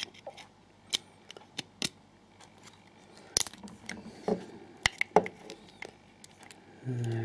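Multi-tool blade prying at the C-clip of a euro cylinder lock: irregular sharp metal clicks and scrapes, a few louder snaps in the middle. A short low hum near the end.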